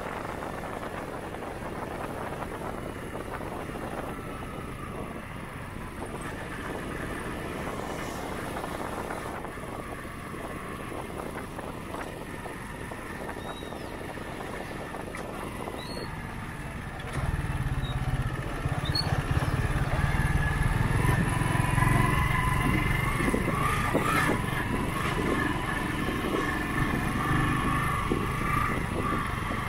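Honda CG 125 Titan motorcycle's single-cylinder four-stroke engine running as it is ridden. About seventeen seconds in the sound gets suddenly louder, with a heavy low rumble.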